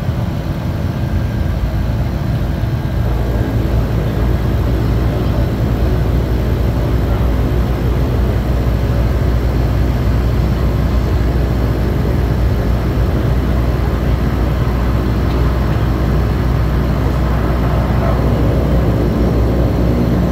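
Propeller aircraft engine running at low power during taxi, heard from inside the cabin: a steady low drone that grows slightly louder near the end.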